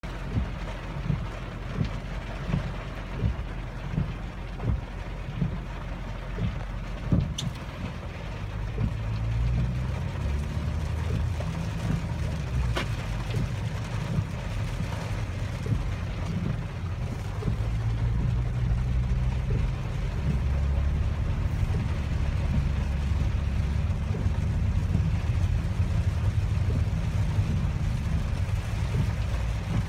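Inside the cabin of a 2016 Audi Q5 3.0 TDI driving slowly in heavy rain: rain on the roof and windshield, with the V6 turbodiesel running low and steady once the car gets moving, about eight seconds in. For the first several seconds there is a regular low thumping, a little more than once a second.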